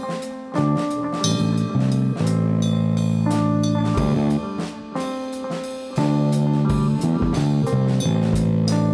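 Instrumental band music: guitar and held low chords over a drum kit with a steady beat.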